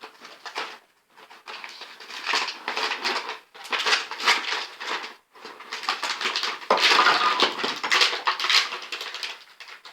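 Plastic toy packaging being crinkled and torn open by hand: irregular spells of loud crackling and rustling with short pauses, loudest in the second half.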